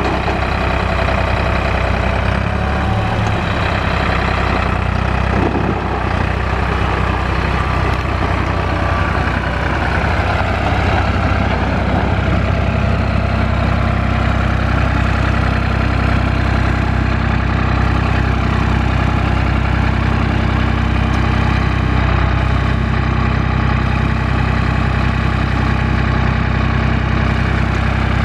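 1999 New Holland 4630 tractor's turbo diesel engine running as the tractor drives, then idling steadily from about halfway.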